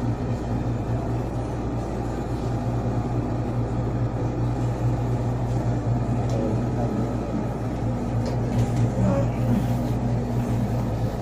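A steady, unbroken low mechanical hum with a faint hiss over it.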